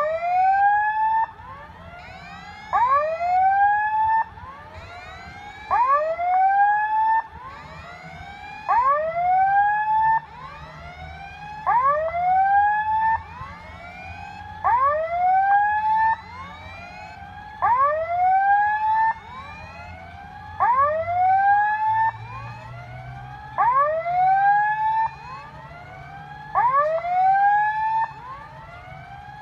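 Level-crossing warning signal sounding for an approaching train: an electronic tone that sweeps upward again and again. Loud bursts of these rising sweeps come about every three seconds, with fainter sweeps between them.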